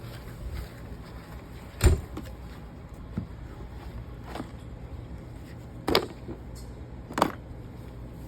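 Three sharp knocks or clunks, with a couple of lighter taps between them, over a steady low hum.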